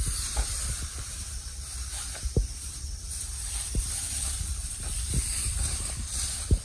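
A steady high-pitched hiss, with a few dull low thumps at irregular intervals as the handheld camera is moved about.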